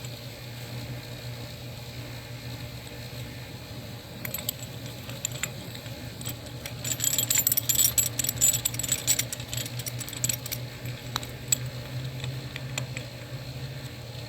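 Metal brake-tool pieces clinking and rattling as a caliper piston tool is fitted, with a thick run of clicks about halfway through, over a steady low hum.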